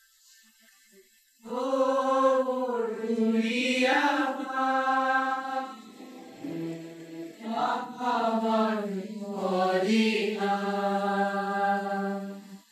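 Choir of students singing an anthem together, slow phrases with long held notes; the singing begins about a second and a half in and breaks off at the end of a phrase near the end.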